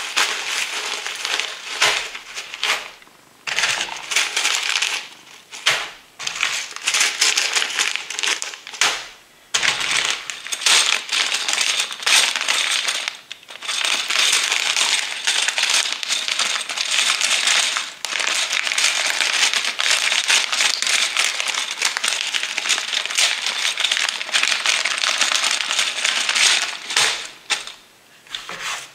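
Clear plastic zip-lock bags of small plastic building bricks being handled and shuffled: the plastic crinkles and the loose bricks rattle inside. The noise stops for a moment several times.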